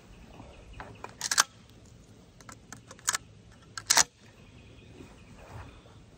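Sharp clicks and clacks from handling a Remington 870 pump-action 12-gauge shotgun: a pair about a second in, a single click near three seconds, and another pair, the loudest, about four seconds in.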